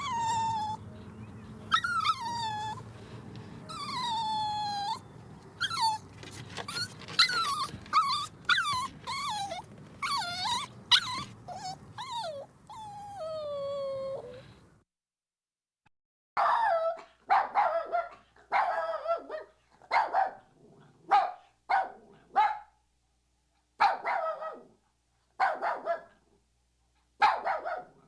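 Puppy whining and whimpering in high, sliding, falling cries, then after a short silence about halfway through, a run of short yips and barks about one a second.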